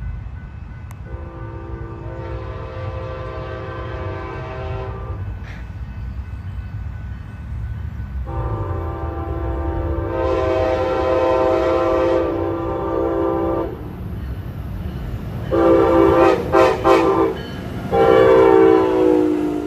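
Horn of an Amtrak Pacific Surfliner SC-44 Charger locomotive, a multi-tone air horn. It sounds two long blasts, then a quick run of short toots, then a last long blast that drops in pitch as the locomotive passes close by. Under the horn the locomotive's engine and the train rolling give a steady rumble.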